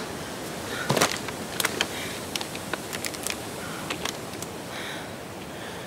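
A woman breathing hard in soft, recurring puffs, out of breath from the uphill climb. Scattered short clicks and rustles of handling run through it.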